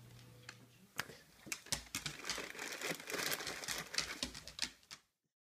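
Plastic bag crinkling and rustling as a dog noses into it in a refrigerator drawer, with sharp clicks and knocks mixed in. It starts about a second in and cuts off suddenly near the end.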